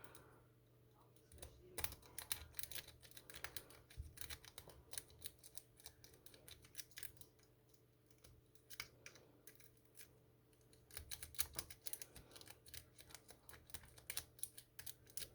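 Rake pick being worked in a Do It brand 40 mm padlock: quick runs of faint metallic clicks and scrapes as the pick rakes the pins, with a lull in the middle.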